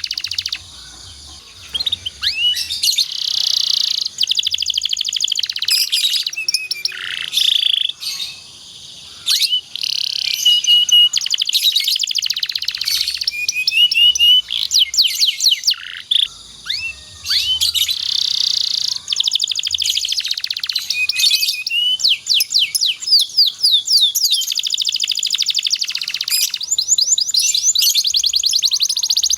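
Domestic canary singing a long, loud song of rapid rolling trills and sweeping chirps, with a couple of brief pauses.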